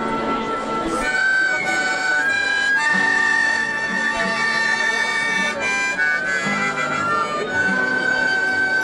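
A small high-pitched wind instrument plays a melody in held notes over strummed acoustic guitars, the strums coming about twice a second.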